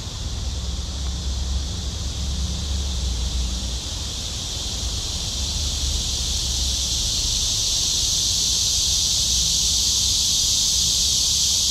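A chorus of cicadas droning steadily, swelling louder about halfway through, over a low rumble of wind on the microphone in the first few seconds.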